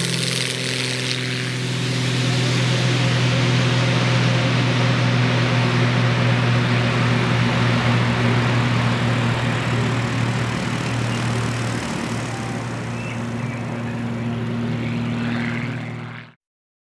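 Extra 300 aerobatic plane's six-cylinder Lycoming engine and propeller at full takeoff power. The sound builds about two seconds in to a steady, loud drone as the plane lifts off and passes, eases slightly later on, and cuts off abruptly near the end.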